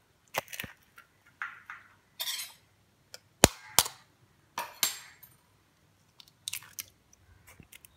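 Eggs tapped and cracked against the rim of a stainless-steel mixer-grinder jar: a scatter of sharp clicks and clinks, the loudest about three and a half seconds in.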